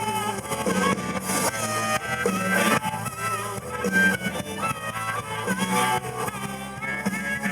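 Blues band playing an instrumental passage: a lead line of bending notes over a repeating bass figure, with guitar.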